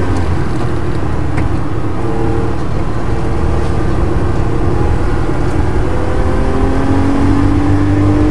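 Air-cooled flat-six engine of a 1976 Porsche 911 race car, heard from inside the cabin while lapping a track. The engine is under load, with its pitch climbing steadily through the last couple of seconds as the car accelerates.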